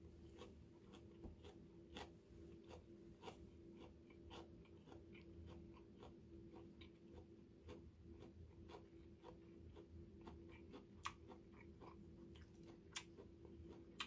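A person chewing a mouthful of raw butterbur leaf wrap close to the microphone: faint, irregular mouth clicks and crunches, with two sharper clicks near the end. A steady faint hum lies underneath.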